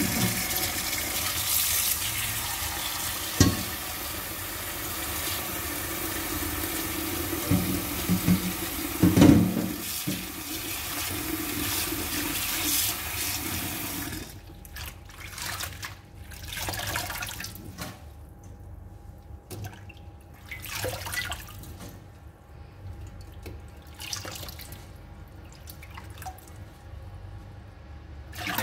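Tap water running into a stainless-steel bowl in a steel sink while rocket (gergir) leaves are swished and rinsed by hand, with a couple of sharp knocks. About halfway through the tap is shut off and only scattered splashes and drips remain. The tap starts running again at the very end.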